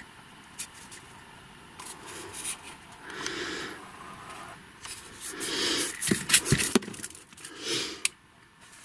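Firework dummies being handled and shifted about in a small room: light scrapes, rustles and a scatter of small knocks, busiest about two thirds of the way through.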